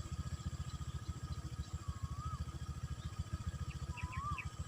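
A small engine running steadily with a fast, even low chug, and a short rising whistle heard twice.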